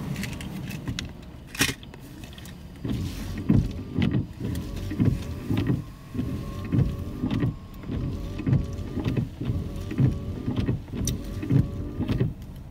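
Automatic rollover car wash gantry heard from inside the car: a steady electric drive-motor whine sets in about three seconds in, with a low rhythmic thumping, roughly one to two beats a second, as the machine works over the car. A single sharp click comes shortly before.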